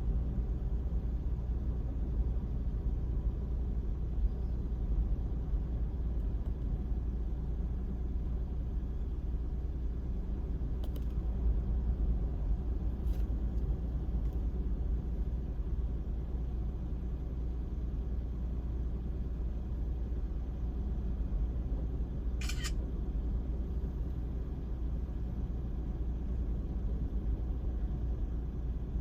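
Steady low rumble of ocean surf from a typhoon swell breaking on the beach. A brief high chirp sounds once, about two-thirds of the way through.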